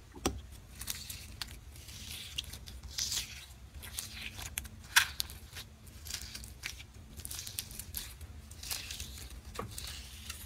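Jelly cube slime being stretched, squeezed and pulled apart by hand, giving irregular sticky crackles, pops and soft tearing sounds.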